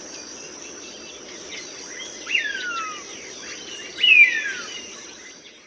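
Hawk screaming twice, each a harsh call that falls steeply in pitch, about two seconds apart, over a steady high buzz of crickets.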